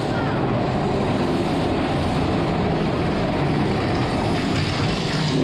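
Roller-coaster mine-train cars running along the track with a steady rumble.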